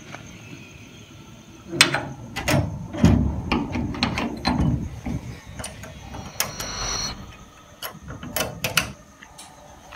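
Handling noise from a phone microphone rubbing and knocking against a hoodie: a run of irregular clicks with rough rustling, heaviest in the first half and thinning out near the end.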